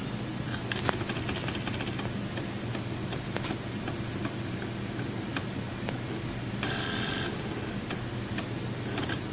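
Western Digital My Book 8TB external hard drive spinning with a steady low hum, its heads ticking: a rapid run of ticks about half a second in, scattered single ticks after, and a brief buzzy burst about two-thirds of the way through.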